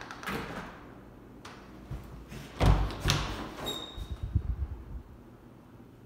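An interior closet door with a lever handle being opened: handle and latch clicks, then heavy thuds and knocks as the door swings open, with a brief high squeak midway.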